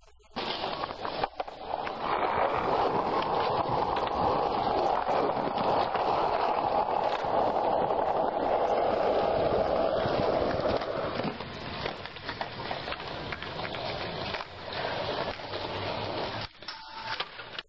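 Skateboard wheels rolling over rough concrete, a steady rushing noise that grows louder about two seconds in and eases off after about eleven seconds.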